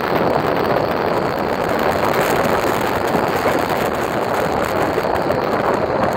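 Steady rushing wind noise on the microphone from riding at speed, mixed with the rumble of wheels rolling on pavement.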